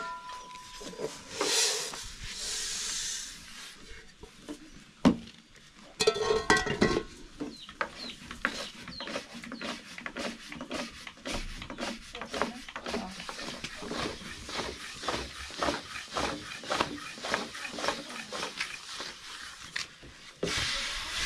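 A thin wooden lavash rolling pin working dough flat on a round wooden board, knocking and rubbing against the wood in a quick, uneven patter of about two to three taps a second. There is a short hiss about two seconds in, and a brief loud call about six seconds in.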